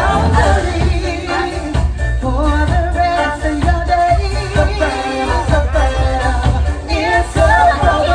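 Live street band playing upbeat dance music with singing over a steady bass and drum beat.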